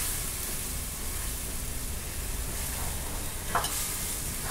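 Sauce sizzling steadily in a hot wok as soy sauce is poured in and stirred with a wooden spatula.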